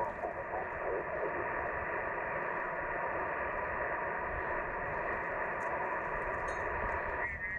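Ham radio transceiver's speaker hissing with steady receiver static, band-limited like single-sideband audio, with faint garbled signals buried in the noise. A stronger, garbled voice signal cuts in just before the end.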